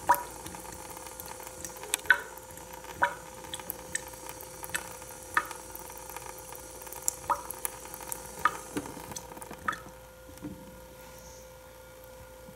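A thin stream of water running from a kitchen faucet into a stainless steel sink, a steady light hiss broken by irregular sharp plinks, with a faint steady tone underneath.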